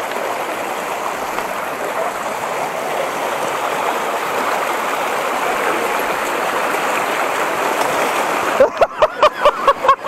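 Mountain stream rushing steadily over rocks. Near the end a quick string of short pitched sounds begins, about six a second.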